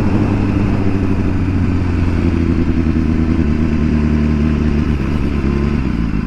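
Inline-four engine of a 2015 BMW S1000RR sport bike running steadily while being ridden, its note easing slightly near the end.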